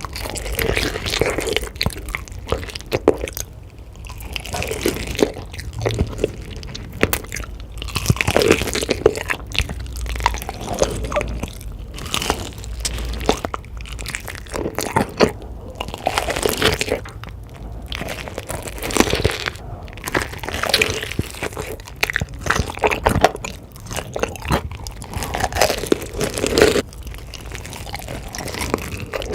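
Close-miked eating: a person biting and chewing crunchy food, with repeated irregular crunches and wet mouth sounds between them.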